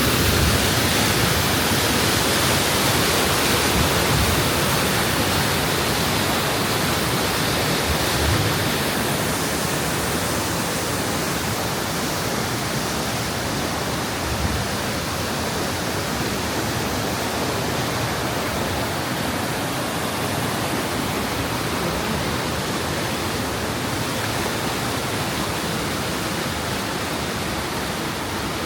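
Waterfall: falling water making a steady rushing noise that eases slightly after about eight seconds.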